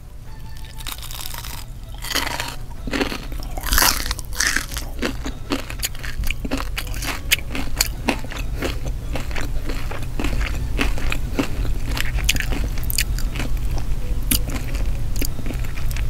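Close-miked biting and crunchy chewing of a deep-fried fried rice patty with a panko crust: dense crisp crackles, loudest in the first few seconds, then steady crunching as she chews.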